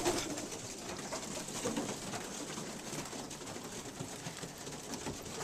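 Racing homing pigeons in a loft cooing softly, among faint scattered scratching and shuffling of the birds.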